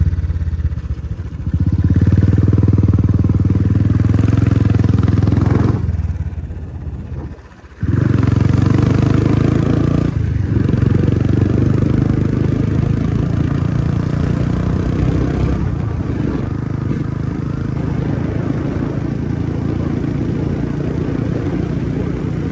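Motorcycle engine running as the bike is ridden. The engine noise falls away for about two seconds around six seconds in, then comes back strongly.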